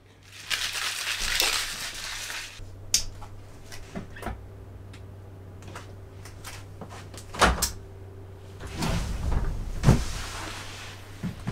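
Room handling noises with no speech: a hiss for about two seconds at the start, then scattered sharp clicks and knocks, and a rumbling shuffle ending in a thud as a person drops into a desk chair, over a steady low hum.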